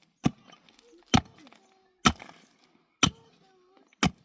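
Hard chopping blows from a hand tool, five in all, about one a second, each short and sharp, with faint voices in between.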